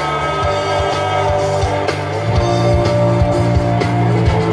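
Loud rock music with guitar over a steady drum beat, played through a concert sound system; the bass moves to a new note about two seconds in.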